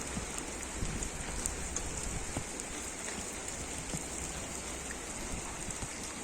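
Steady rain falling, a continuous hiss with many individual drops ticking as they strike.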